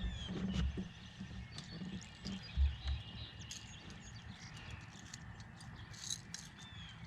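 Songbirds chirping and calling around the water, with a couple of low dull thumps in the first three seconds.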